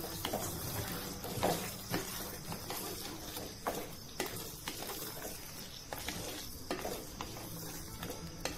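A spatula stirring and scraping through thick Manchurian gravy in a pan, with irregular knocks against the pan's sides, over the steady sizzle of the gravy at the boil.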